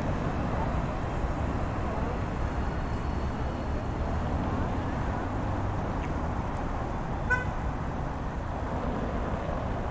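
City street ambience of steady road traffic noise, with a single short horn beep about seven seconds in.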